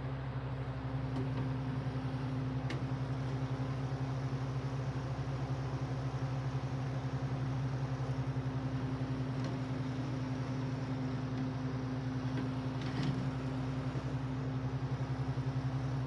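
Westinghouse 8-inch Riviera desk fan running on low speed: a steady electric-motor hum with a fast flutter in it.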